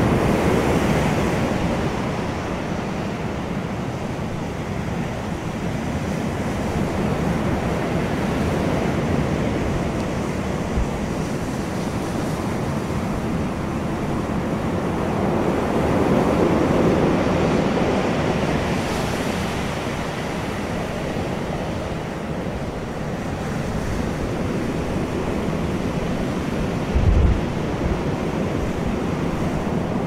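Ocean surf breaking and washing over a pebble beach, a continuous rush that swells at the start and again about halfway through. A brief low thump comes near the end.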